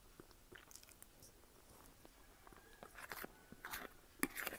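A person chewing a mouthful of fried egg, with soft mouth sounds and short crunchy clicks, growing louder past the middle and ending with a sharp click a little after four seconds in.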